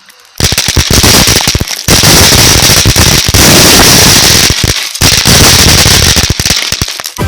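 Hundreds of pop-pop snappers (small paper-wrapped throw-down crackers) going off in a loud, dense, rapid run of snaps, with a few brief lulls, thinning out near the end.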